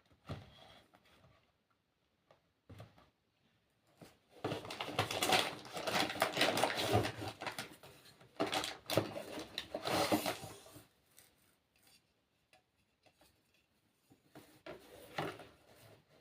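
Packaging and product containers being handled: a few light knocks, then several seconds of dense rustling and clattering, and a shorter burst of rustling near the end.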